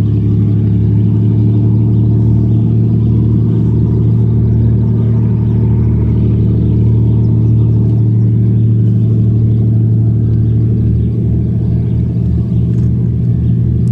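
High-speed passenger ferry's engines running at speed with a steady, loud low drone and hum as it passes. A faint low pulsing joins in over the last few seconds.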